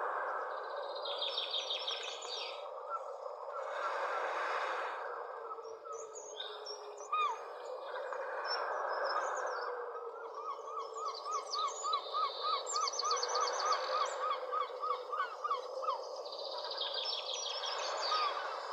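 Several birds singing over a steady rushing background noise. There are high, fast trills near the start and near the end, and from about ten seconds in a bird repeats a short chirp about four times a second for several seconds.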